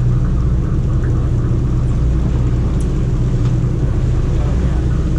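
Sportfishing boat's engine running steadily, a loud low hum.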